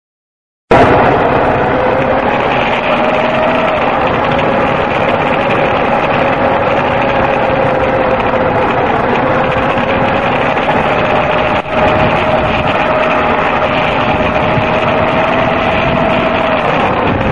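Yamaha XT250's single-cylinder four-stroke engine running steadily while riding. The sound cuts in abruptly after a short silent gap at the start, and dips briefly once past halfway.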